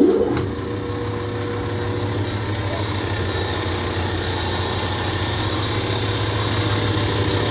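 Large commercial lathe starting up and running: its motor and spindle gearing come on suddenly with a steady hum that grows slightly louder.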